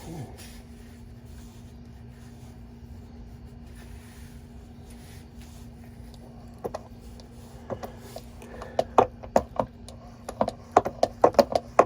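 A steady low hum, then from about seven seconds in a run of clicks and knocks that grows denser toward the end, from a hand fluid-transfer pump being stroked to push gear oil into a differential.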